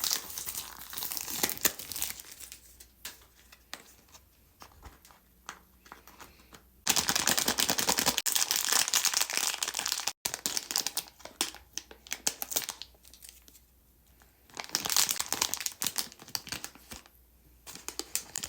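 Plastic packaging crinkling and tearing as toys are unwrapped by hand. It comes in bursts, with a long loud stretch about a third of the way in and another one later.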